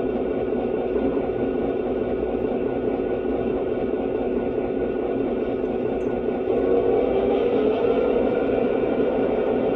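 Lionel Legacy SW8 model locomotive's sound system playing its diesel switcher engine sound, a steady idle through the model's small speaker, growing louder about six and a half seconds in.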